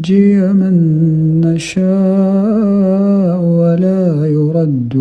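A male reciter chanting the Quran unaccompanied, holding long, drawn-out melodic vowels that wind up and down in pitch. There is a brief breath about one and a half seconds in.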